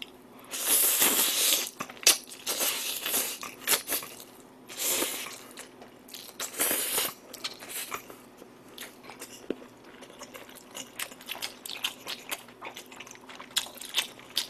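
Close-miked eating of a mouthful of noodles and cabbage greens: long loud slurps in the first seven seconds, the first the loudest, then wet chewing with many quick smacking clicks.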